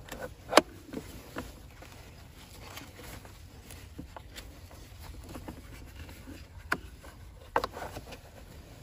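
Sharp plastic clicks and knocks from a Graco infant car seat base as its vehicle seat belt is handled and locked down. The loudest click comes about half a second in, two smaller ones follow, and two more come near the end.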